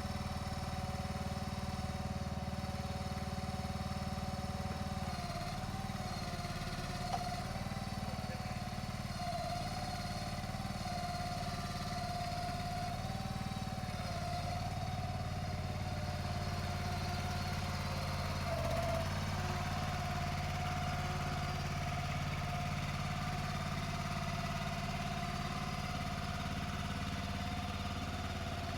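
A motor engine running steadily at a low, even pitch with a wavering whine above it; its note shifts about five seconds in and again near twenty seconds.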